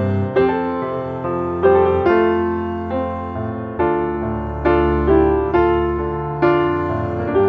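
Background music: a gentle piano or electric-piano melody, with notes struck about once a second and left to ring and fade.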